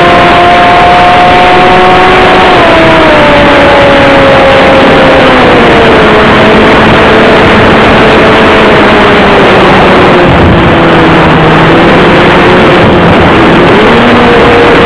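Radio-controlled model airplane's motor and propeller heard through its onboard camera, under heavy wind rush. The whine steps down in pitch as the throttle is eased back for the landing approach, rises briefly near the end, then falls again.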